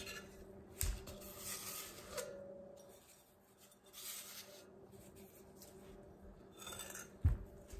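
A small plastic measuring spoon scraping a damp baking-soda and citric-acid powder around a glass measuring cup, in short scrapes. Two low knocks, a little under a second in and near the end, as the glass cup is tilted and set back on the table.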